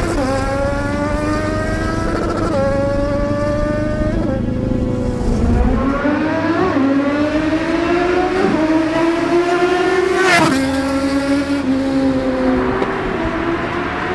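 Kawasaki Z1000's inline-four engine and exhaust under hard acceleration. The pitch climbs steadily and drops sharply at each gear change, a shift about every two seconds.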